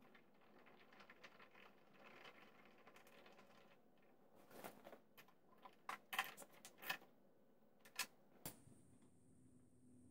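Faint, scattered small clicks and taps of hands working at a lawn mower's spark plug as the new plug is fitted and its cable boot pushed back on, a little busier in the second half.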